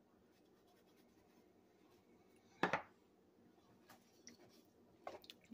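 A metal spoon stirring thick cream sauce and pasta shells in a pan, with one short scrape about two and a half seconds in and a few faint clicks near the end.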